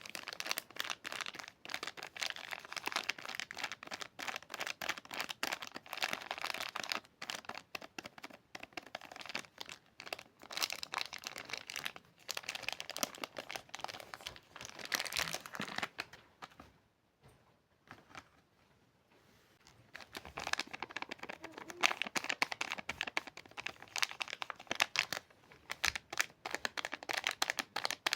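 Soap packaging being opened by hand: wrapper crinkling and tearing in dense crackly rustles, with a pause of a couple of seconds before the crinkling starts again.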